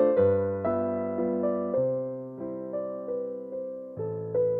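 Background music: an electric piano playing a melody, each note struck and fading.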